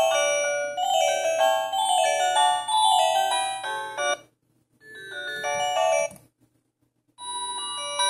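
Philips Xenium E218 built-in ringtone: a bright, chiming electronic melody of stepping notes played by the phone. It breaks off about four seconds in, a short phrase follows, and after about a second of silence another ringtone starts near the end.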